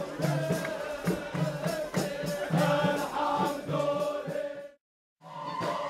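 A group of men chanting religious songs together over a steady beat of frame drums and tambourines. The sound cuts out completely for about half a second near the end, then the chanting and drumming come back.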